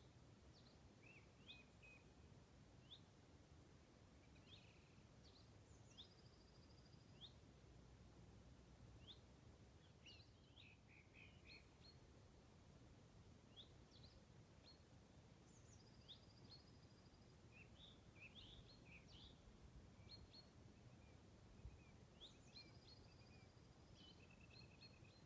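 Faint birdsong: scattered short chirps and whistles, with a song phrase ending in a short trill heard about three times, over a steady low background rumble.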